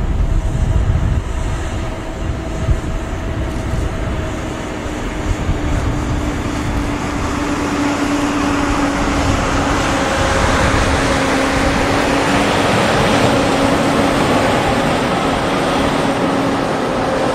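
Boeing 757 jet engines during its landing: a low rumble with a slowly falling engine tone, then a rushing jet noise that builds from about halfway through and holds loud.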